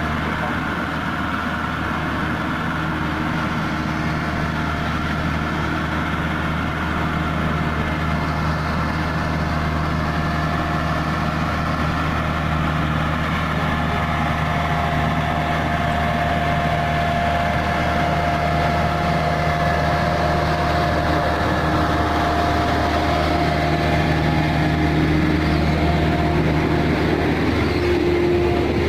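Heavy diesel engine running steadily at a constant speed with a low hum, growing a little louder toward the end.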